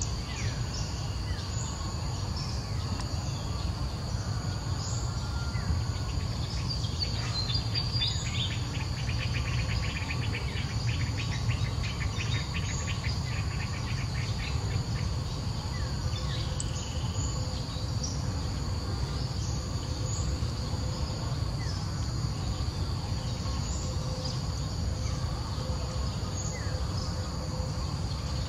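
Outdoor insects buzzing: a steady high drone, with a fast trill between about 8 and 13 seconds in. Scattered short chirps sit on top, over a steady low rumble.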